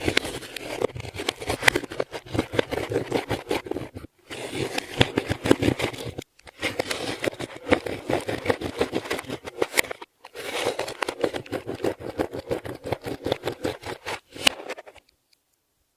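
Hands kneading and squishing clear slime: a dense run of sticky crackles and small pops, in four bouts broken by short pauses.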